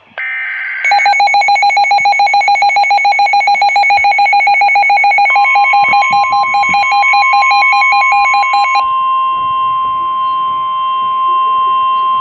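Emergency Alert System flash flood warning tones: a brief buzzy data burst, then rapid electronic alarm beeping. About five seconds in, a steady high alert tone joins and carries on alone after the beeping stops near nine seconds.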